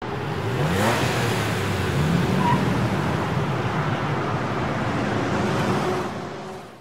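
Road traffic: vehicles driving by, with an engine rising in pitch as it accelerates about half a second in and again around two seconds in. The traffic fades out near the end.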